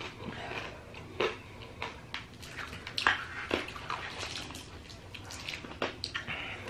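Wet mouth sounds of someone sucking and chewing a sour lemon hard candy: scattered smacks, clicks and slurps.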